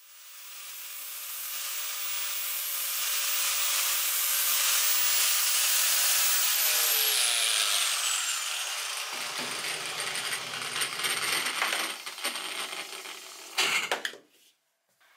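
Angle grinder running, then switched off and spinning down with a falling whine, followed by clatter and knocks of tools set down on a workbench, the loudest near the end.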